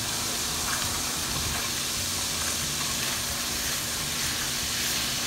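Lemon juice sizzling and bubbling steadily in a hot pan as it reduces and thickens.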